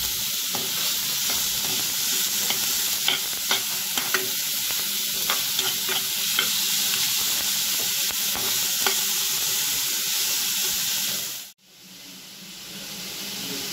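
Chopped capsicum, carrot and green chillies sizzling in oil in a kadai, stirred with a spatula that clicks and scrapes against the pan now and then. The sound cuts out abruptly about 11 seconds in, then the sizzle comes back quieter.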